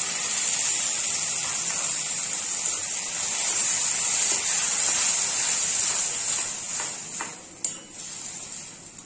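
Tomato puree hitting hot oil in a kadai, sizzling loudly and steadily as it is stirred with a metal spatula, then dying down after about seven seconds. A short click comes near the end.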